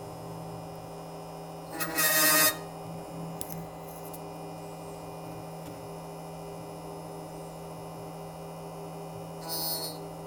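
HPC Tiger Shark 2 key machine running with a steady hum while its cutter shaves a Ford key. A brief loud grinding burst about two seconds in and a shorter one near the end, as the cutter bites into the metal trimming the high points off the cuts.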